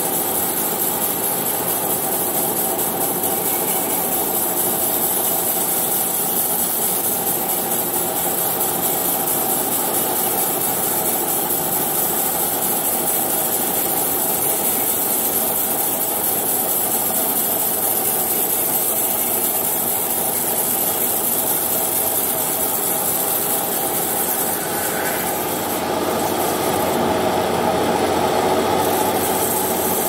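Truck-mounted bandsaw mill running steadily, its engine driving the band blade as it saws through a coconut log. It gets louder for a few seconds near the end.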